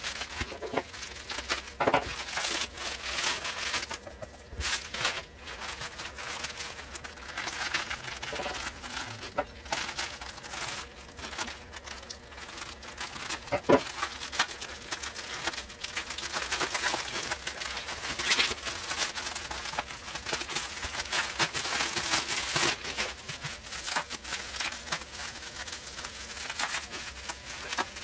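Packaging being handled and opened: irregular crinkling and crackling with sharp clicks, and some tearing.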